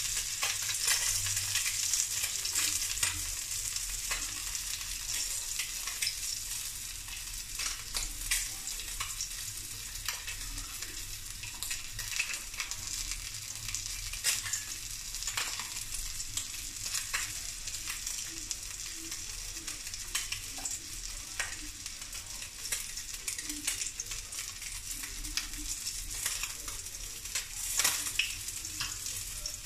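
Hot oil sizzling steadily around a piece of threadfin fish pan-frying in a wok, with scattered small crackles and pops throughout.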